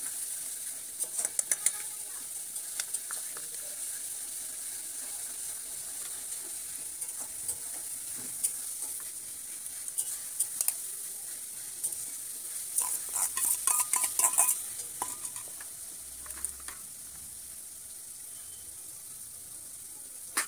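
A metal spoon clinking and tapping against steel bowls as spices are spooned onto raw chicken, in a quick cluster about a second in and a longer run of taps around thirteen to fourteen seconds, over a steady high hiss.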